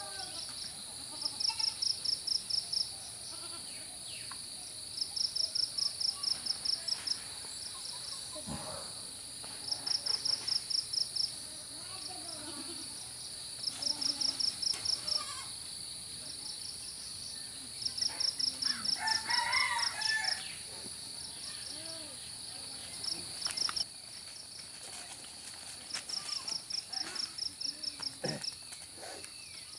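Insects droning steadily, with a loud pulsed insect call, a rapid run of about a dozen chirps, repeating every four seconds or so. Goats bleat now and then in between.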